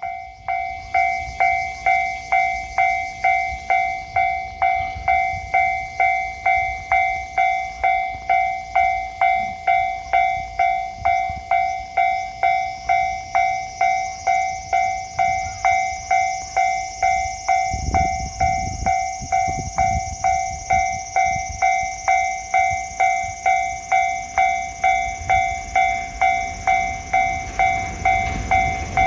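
Japanese level-crossing warning bell ringing steadily at about two strikes a second. The low rumble of an approaching train builds near the end.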